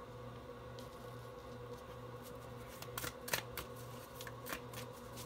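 Tarot cards being handled and laid down on a fabric-covered table: a few soft card slaps and rustles, clustered about three seconds in, over a faint steady electrical hum.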